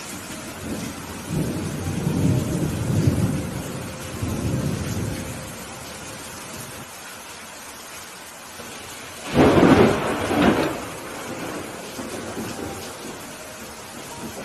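Steady rain with thunder: a low rolling rumble in the first few seconds, then a sudden sharp thunderclap about nine seconds in, cracking again about a second later.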